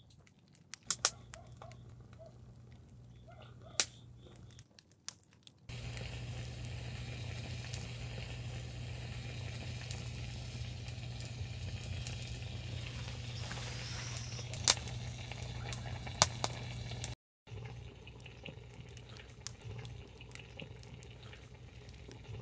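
Pork kimchi stew simmering and bubbling in a tiny cast-iron pot over a small open fire. The bubbling grows louder about five and a half seconds in, and a few sharp clicks stand out above it.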